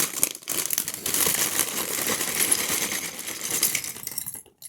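Plastic Lego parts bag crinkling as it is opened, with small plastic bricks clattering and rattling against each other; the sound cuts off suddenly near the end.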